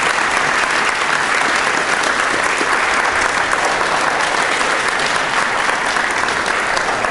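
Audience applauding steadily, a sustained clapping from many hands.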